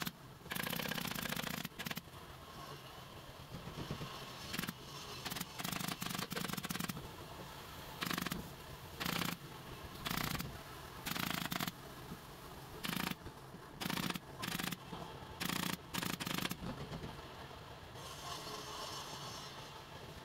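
Pneumatic upholstery staple gun firing in quick runs of shots, about a dozen bursts of rapid clacks and air, as fabric is stapled to a wooden frame. A softer rustle of fabric comes near the end.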